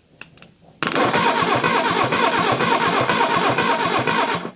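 Reliant Fox four-cylinder engine turned over on its starter motor for a compression test, cranking steadily without firing. It starts about a second in and cuts off sharply near the end. The gauge shows no compression at all on this cylinder.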